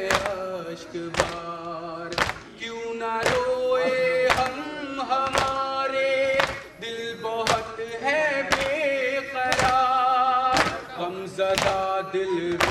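A man's voice singing a noha (mourning lament) into a microphone, in long held lines, over matam: mourners striking their chests with their hands in unison, about once a second.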